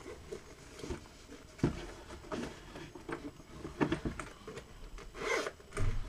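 Hands handling a zippered hard-shell headphone case: scattered small clicks, knocks and rubbing, with a short rasp a little past five seconds in and a couple of low thumps near the end.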